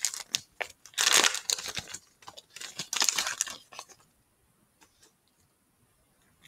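Foil trading-card booster pack wrapper crinkling in three bursts as the cards are pulled out of it, going quiet after about four seconds.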